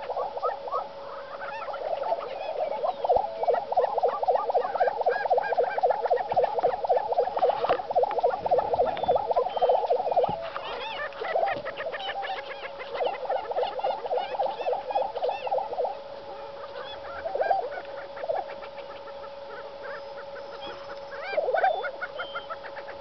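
Displaying male lesser prairie-chickens calling in long runs of rapid, pulsed notes, several a second, over a steady low tone. The runs come from about two to ten seconds in and again from about twelve to fifteen seconds, with short bursts later.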